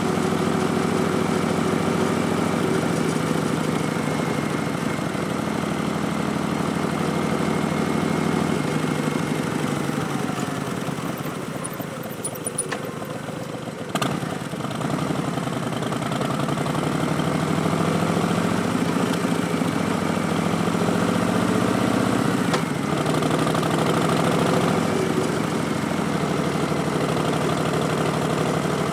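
2019 Harley-Davidson Street Bob's Milwaukee-Eight 107 V-twin running through Vance & Hines Twin Slash slip-on mufflers. The engine note drops and quietens as the bike slows around the middle, a single sharp click comes about halfway through, and the pitch then rises as it accelerates again.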